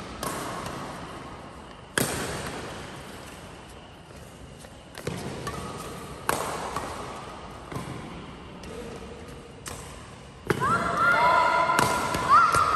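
Badminton rackets striking a shuttlecock in a rally, about half a dozen sharp strikes echoing in a large hall. From about ten seconds in it gets louder, with repeated short rising squeaks of sports shoes on the court floor.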